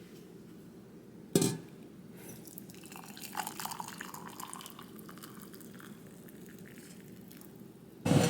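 A single sharp knock or clink about a second and a half in, then a few seconds of light, scattered clicking over a faint low hum: small household objects being handled.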